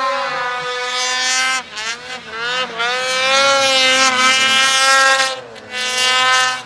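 Ski-Doo Summit 850 snowmobile's two-stroke engine revving hard, held at high revs for most of the time, with the pitch dipping briefly about two seconds in and again near the end before a short burst of throttle.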